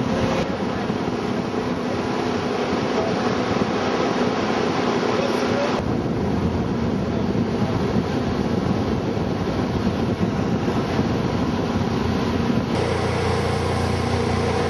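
Jet boat running at speed up the river: a loud, steady engine drone mixed with rushing water and wind buffeting the microphone. The sound shifts abruptly about six seconds in and again near the end.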